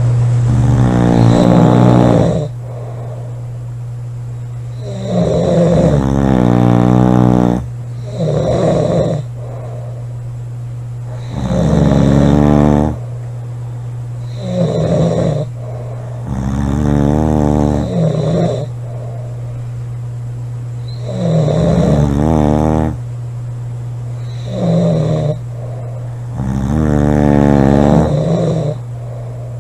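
Two girls snoring loudly through open mouths: about nine rasping snores, each one to two and a half seconds long, a few seconds apart. A steady low hum runs underneath.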